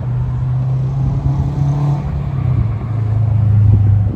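Road traffic: a vehicle engine's low, steady hum that drops slightly in pitch about halfway through and grows louder toward the end.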